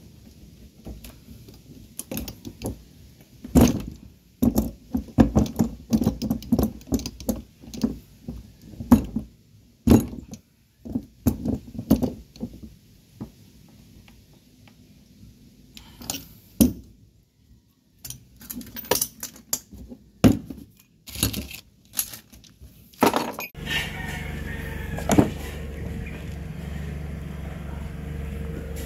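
Scattered metallic clinks and knocks of tools and parts being handled, then, about three-quarters of the way through, a Mazda 3's engine comes in and runs steadily at idle, now running on fuel from its newly fitted fuel pump.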